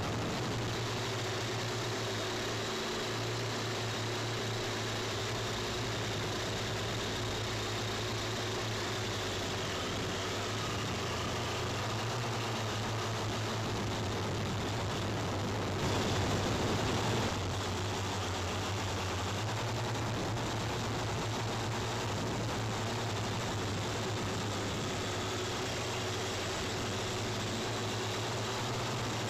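JJRC H98 toy quadcopter's electric motors and propellers whirring steadily in flight, the pitch wavering slightly as the throttle changes. About sixteen seconds in there is a louder rush lasting a second or two.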